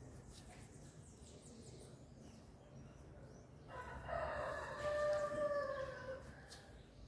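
A rooster crowing once: a single drawn-out crow of about two and a half seconds, starting a little past halfway through.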